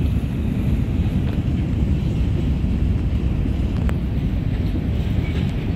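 Wind buffeting the microphone: a heavy, uneven low rumble, with a faint click about four seconds in.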